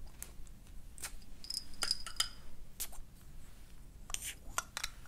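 Plastic pump-style cupping cups being released from the skin one after another: a series of sharp plastic clicks, with a thin high whistle about two seconds in and a short hiss of air about four seconds in as the valves let air in and the cups come off.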